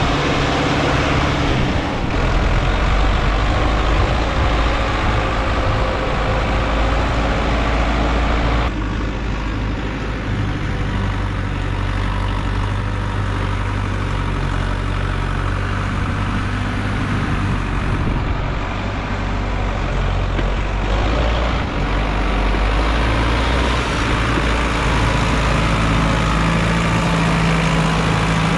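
Sonalika DI 750 III tractor's diesel engine running steadily under load while pulling a trolley heaped with soil. The sound changes abruptly a few times.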